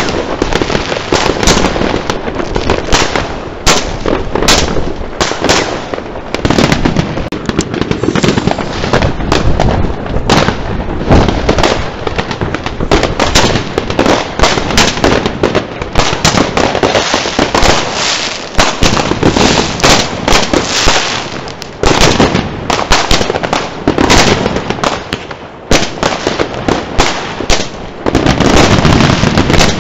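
Fireworks going off without pause: a dense, overlapping stream of bangs and crackles.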